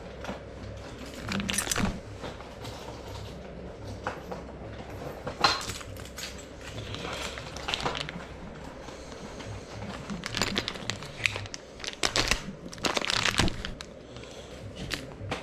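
Packaging rustling and crinkling, with scattered light clicks and knocks, as a door latch and latch plate are unpacked and handled.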